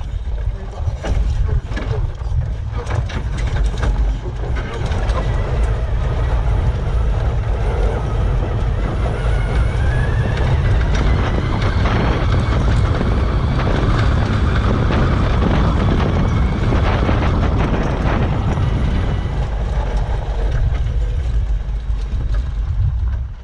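Electric UTV driving over a rough desert dirt trail: a steady low rumble with the chassis creaking and knocking over bumps, and the transmission's whine rising faintly about ten seconds in.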